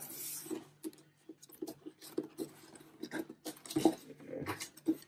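Cardboard box being closed by hand: a brief scraping rustle of the flaps at the start, then a string of light taps and knocks as the lid is pressed and tucked shut.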